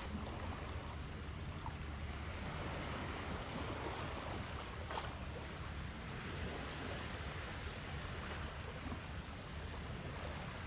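Small sea waves washing and splashing against rocks and pebbles at the shoreline, over a steady low rumble of wind on the microphone. One short sharp sound about five seconds in.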